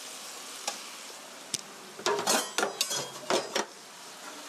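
Pork stir-fry sizzling steadily in a frying pan as sliced mushrooms are pushed in, with a couple of single clicks and then a burst of clatter and scraping against the pan from about two seconds in.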